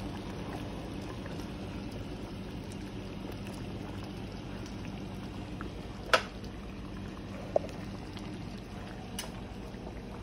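Skillet of onion gravy with fried pork chops simmering steadily on the stove. A sharp knock comes about six seconds in and a fainter click a second and a half later.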